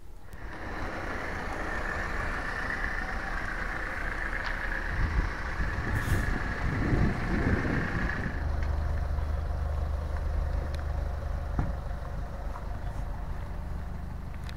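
A motor vehicle's engine running steadily nearby. About eight seconds in, the sound changes to a lower, steady hum.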